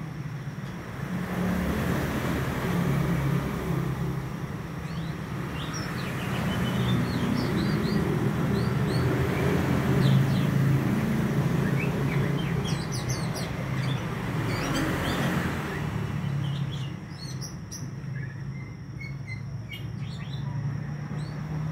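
Young male white-breasted Oriental magpie-robin singing in its cage: scattered quick, high whistled and chirping notes that come thicker in the second half. A steady low rumble runs underneath and is louder than the song.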